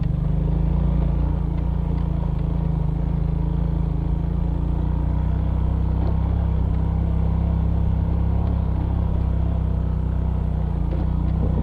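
Suzuki Smash Revo's small single-cylinder four-stroke engine running steadily under load in first gear on a rough dirt trail, its note staying level, with a few faint rattles from the bike over the bumps.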